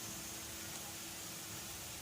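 A steady, even hiss with no tone or rhythm in it.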